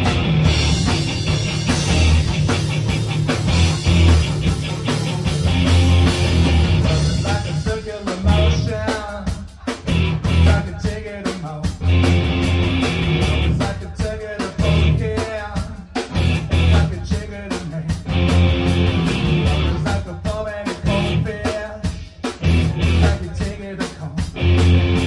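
Live rock band playing a song: electric guitar, bass and drums, with a heavy low end.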